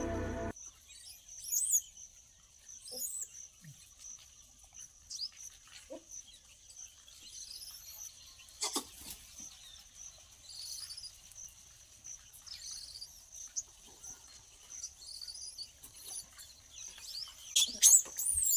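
Birds chirping and calling over a steady high-pitched insect drone, with a single sharp click about nine seconds in and a few louder sharp noises near the end.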